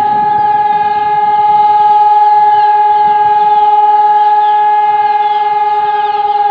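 Hörmann ECN-3000 electronic flood siren sounding one loud, steady tone that holds without change, having just wound up to full pitch.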